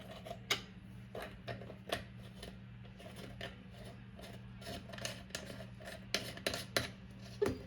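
Small hard objects being handled: a run of irregular clicks and taps over a steady low hum.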